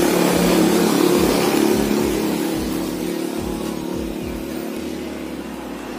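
A motor vehicle's engine running close by and fading away, a steady hum that gets gradually quieter.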